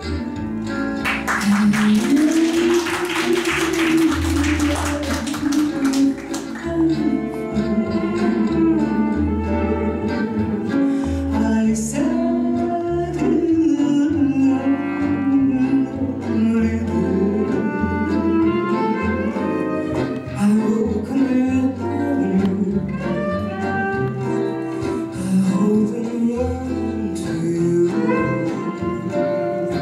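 Female singer performing live with a small acoustic band of violin, double bass and acoustic guitar in a rumba-style groove, the bass pulsing steadily under the vocal line. A dense run of bright, fast percussive strokes sounds from about one second to six seconds in.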